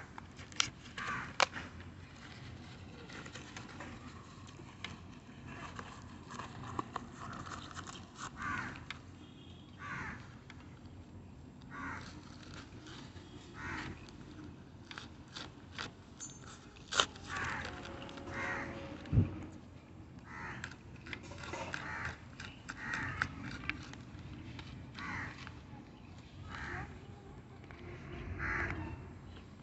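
Hands cutting and tearing the corrugated-cardboard and plastic-film wrapping of a parcel with a blade: scattered scraping, crinkling and ripping sounds with occasional sharp clicks.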